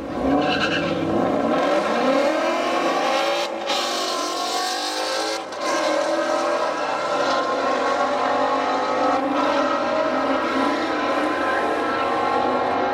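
A Dodge Challenger and a Ford Mustang launching together at full throttle from the drag strip start line, their engines revving up through the gears in repeated rising sweeps and then running hard down the track.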